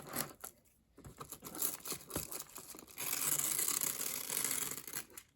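Packaging being handled: scattered crinkling and rustling, then a steadier tearing or scraping noise for about two seconds that stops just before the end.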